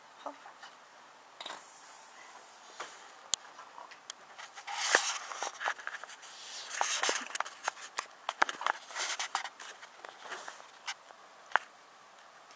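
Handling noise from a camera or phone being picked up and repositioned: scattered clicks and knocks with scraping and rubbing against the microphone. It is busiest from about five seconds in.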